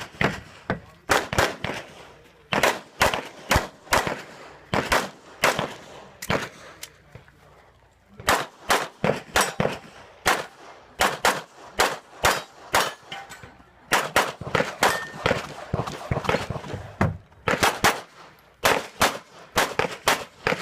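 Glock pistol shots fired in quick strings of several rounds, each a sharp crack, with a pause of about two seconds about a third of the way in before the firing resumes.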